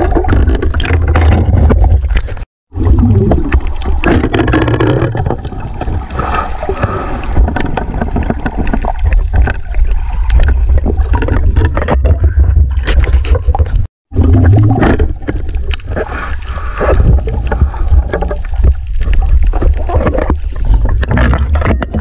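Underwater sound picked up by a camera in a waterproof housing as a spearfisher swims: a loud low rumble with gurgling water. The sound cuts out completely for a moment twice.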